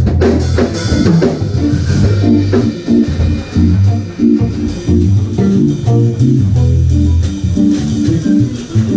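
Live jazz-fusion band playing: a busy electric bass line and guitar chords over drum kit.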